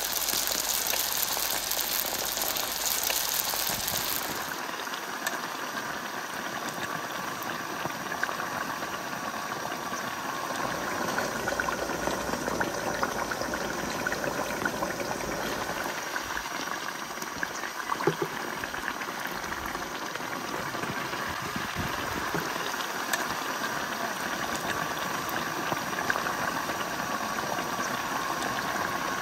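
Baursak dough pieces deep-frying in hot oil in a wok, a steady sizzle that is sharper for the first few seconds and then settles. A few light clicks of a ladle turning the pieces.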